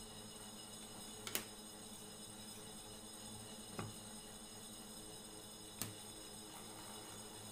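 Three light knocks of wooden box parts being handled and set down on a workbench, about two seconds apart, over a steady faint hum.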